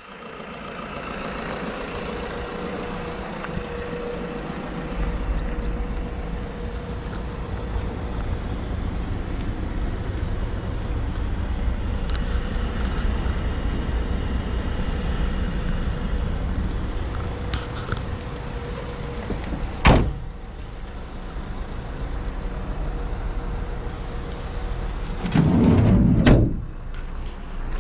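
Fiat Doblo van doors being handled over a steady low rumble: a single sharp click about twenty seconds in, and a heavier, second-long door movement and thud near the end.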